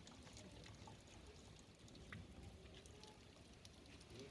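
Near silence: faint background with a low rumble and a few scattered faint clicks.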